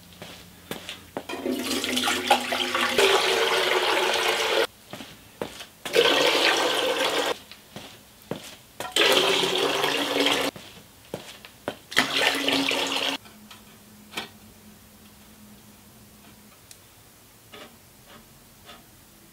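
Water being poured from a container into a welded steel oil pan in four separate pours, splashing onto the pan's bottom. The pan is being filled with a measured 6 quarts to find the dipstick's full mark. A few light clicks follow near the end.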